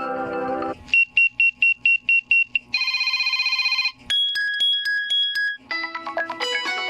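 Lenovo A318 phone ringtones and alert tones played one after another: the tail of a mallet-like melody, a run of about nine quick high beeps, a second-long rapid trill, a string of two-pitch beeps, then another melody starting near the end.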